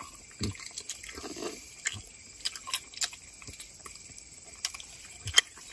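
A person biting and chewing food, a skewered sausage among it: scattered small clicks and smacks, with a short low murmur about a second in.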